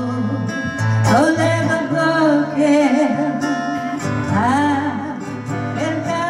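A song: a voice singing over guitar accompaniment with a steady bass line.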